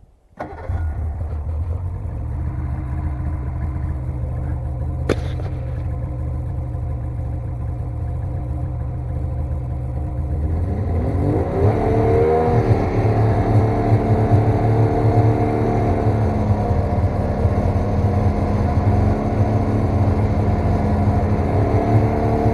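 Snowmobile engine starting up and idling steadily, with a single sharp click about five seconds in; about ten seconds in it revs up with a rising pitch and then runs louder and faster.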